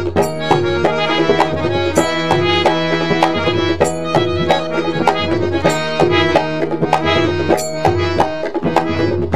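Instrumental interlude of Indian devotional music: a harmonium holds sustained reed notes over a quick, steady beat on hand drums.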